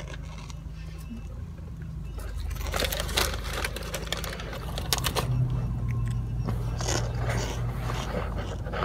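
Steady low rumble inside a car cabin. From about three seconds in it is overlaid with scattered rustling and clicking, likely the phone being handled close to the microphone.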